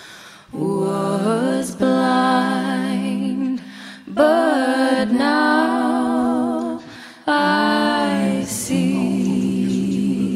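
A slow song: a singing voice holds long notes in phrases of a second or two, separated by short breaths, over a steady low accompaniment.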